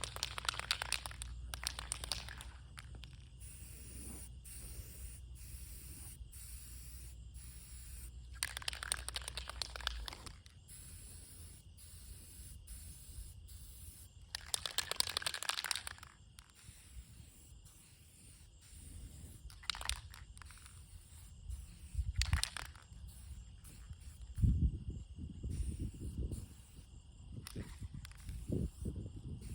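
Aerosol can of rust-preventive spray paint hissing in short bursts of one to two seconds, four times, as paint goes onto bare metal. Low rumbling knocks come in the last few seconds.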